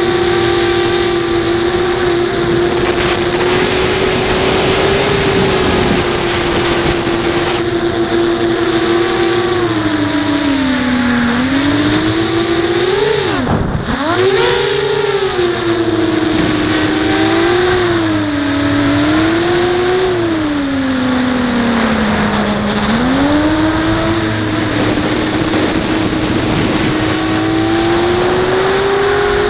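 Brushless motors and 5-inch propellers of an FPV racing quadcopter whining, as picked up by the onboard camera. The pitch holds steady for several seconds, then rises and falls with the throttle. About halfway through it drops sharply and surges back.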